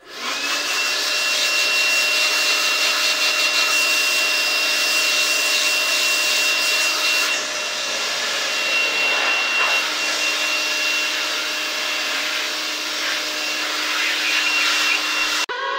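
Electric air blower running steadily, blowing dust out of a computer case: a loud rush of air with a high motor whine that rises as it spins up at the start and cuts off suddenly just before the end.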